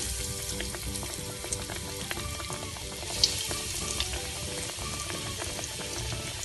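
Breaded bread squares deep-frying in hot oil in a kadai: a steady sizzle with a few sharp crackling pops.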